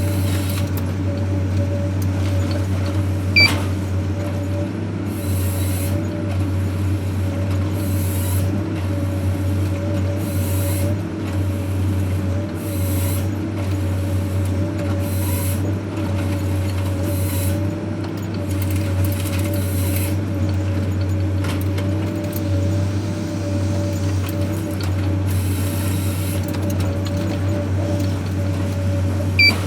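Heavy forestry machine running steadily with a constant engine drone, and short hissing bursts recurring every second or two. Two sharp clicks, one a few seconds in and one near the end.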